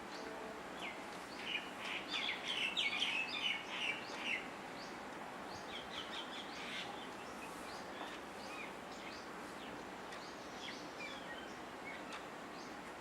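Asian koel calling: a fast run of short, shrill notes from about a second and a half in to about four seconds, followed by scattered brief chirps over steady outdoor background noise.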